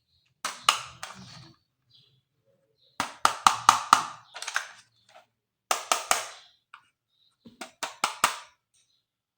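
Hard plastic toy parts being handled, clicking and tapping in four short clusters with silence between them.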